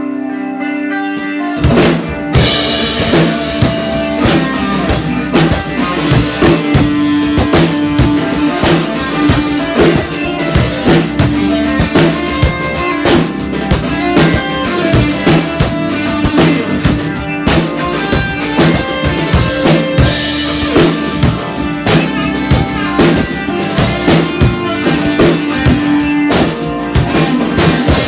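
Rock music: a sustained guitar and bass part, then a full drum kit comes in about a second and a half in with a busy, driving beat of kick, snare and cymbals.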